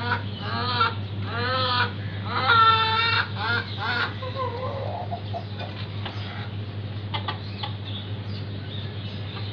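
Hen calling from its cage: a run of clucks and drawn-out calls in the first four seconds, the loudest about three seconds in, then only faint sounds.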